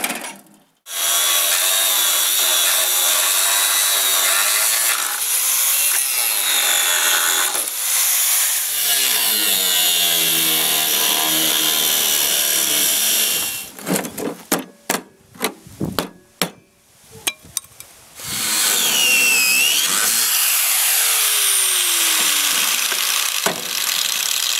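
Electric angle grinder cutting through the steel mounting tabs of a rusty mower deck, its whine wavering as the disc bites into the metal. Two long cuts: the first starts about a second in and runs to about halfway, and the second starts a few seconds later. Between them come several sharp clicks and knocks.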